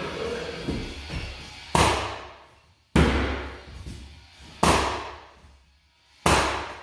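Pneumatic flooring nailer fired by mallet blows, nailing hardwood flooring boards: four sharp bangs about a second and a half apart, each ringing out for about a second.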